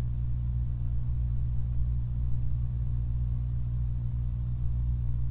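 Steady low hum in a pause between speech, with no other events.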